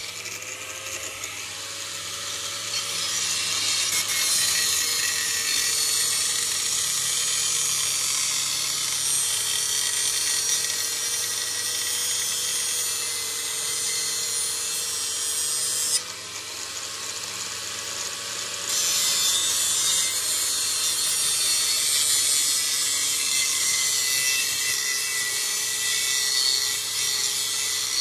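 Electric grinder running with a knife blade held against the wheel: a continuous hissing grind over the motor's steady hum. The grind is lighter for the first few seconds and again for about three seconds past halfway, then comes back at full strength.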